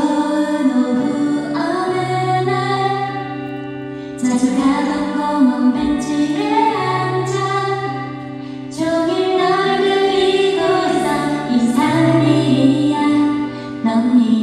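A woman singing a slow Korean ballad into a microphone over soft instrumental accompaniment with sustained low notes, recorded live in a concert hall.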